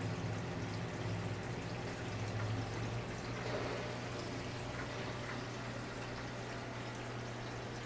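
Aquarium water trickling and splashing from a filter return into the tank, with a steady low pump hum underneath.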